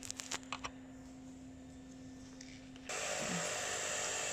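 A few light clicks and knocks, then about three seconds in a small electric motor starts abruptly and runs steadily: an electric coffee grinder grinding beans.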